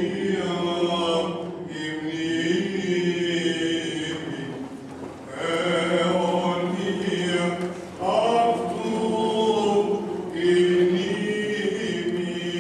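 Greek Orthodox liturgical chant, sung in long held notes in several phrases with short breaks between them.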